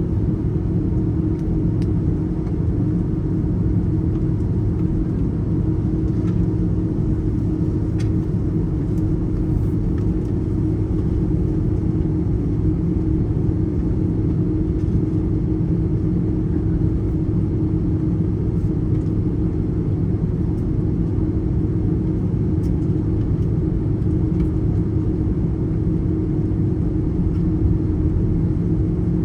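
Steady low drone of an Airbus A330's jet engines and air system heard inside the passenger cabin, with an even hum of a few steady tones and no change in pitch or level.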